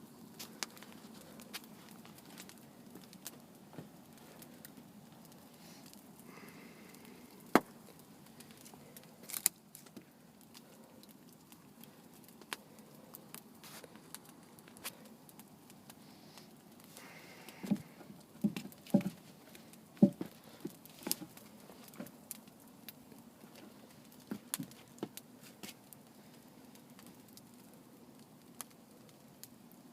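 Wood campfire crackling with irregular sharp pops, a cluster of louder pops about two-thirds of the way through.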